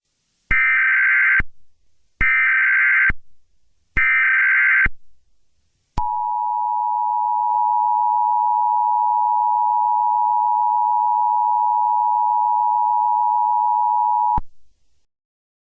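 Emergency Alert System tones: three short bursts of the SAME data header, each about a second long, then the two-tone EAS attention signal held steady for about eight seconds before cutting off.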